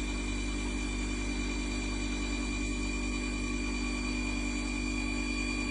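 Water-cooled brake disc grinding machine running, its diamond grinding wheels working a spinning brake disc: an even machine hum with several steady tones and a hiss, unchanging throughout.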